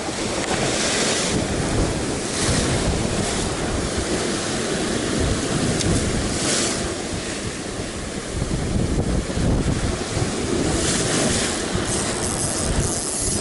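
Rough sea surf breaking and washing over shoreline rocks, swelling into several louder hissing surges of foam, with wind rumbling on the microphone.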